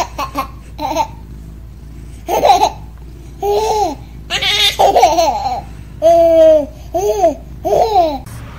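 A baby laughing in a run of short, high-pitched squealing peals, roughly one a second, with a longer peal around the middle.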